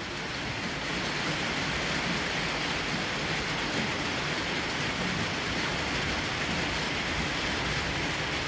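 Steady thunderstorm rain falling, an even hiss with no thunderclap.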